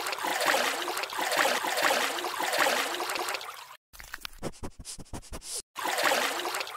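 Watery sound-effect foley: trickling, gurgling water for about four seconds, then a quick run of short clicks and taps, and the watery sound again near the end.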